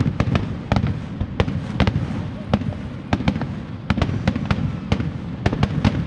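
Fireworks display: a rapid, irregular series of sharp bangs from bursting aerial shells, about three a second, over a continuous low rumble.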